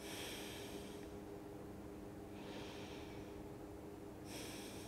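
A woman's slow, steady breathing while holding a seated yoga pose: three breaths about two seconds apart, with a faint steady hum underneath.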